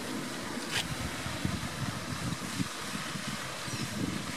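Wind buffeting the microphone, an uneven low rumble, with one short, sharp tick about a second in.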